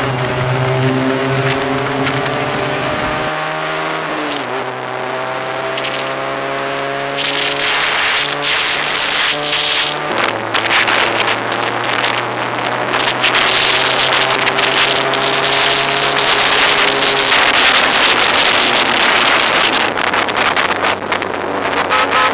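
Motorcycle engine accelerating through the gears, its pitch climbing steadily and dropping at gear changes about three and a half and ten seconds in. Heavy wind rush on the microphone builds as speed rises and covers the engine in the second half.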